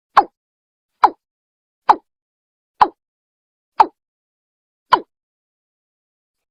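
Watercock (Gallicrex cinerea) calling: short notes repeated about once a second, each dropping in pitch, six in all, with a longer pause near the end.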